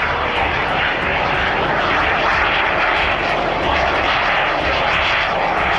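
Aermacchi MB-339 jet's Rolls-Royce Viper turbojet, a loud, steady rushing jet noise as the plane flies past.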